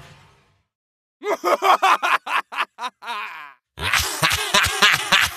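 An evil, demonic voice laughing in short rapid pulses. It starts about a second in, pauses briefly, then returns as a lower, denser laugh.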